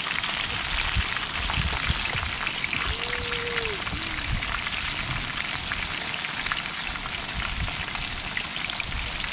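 Hot cooking oil sizzling and crackling steadily as food deep-fries in it.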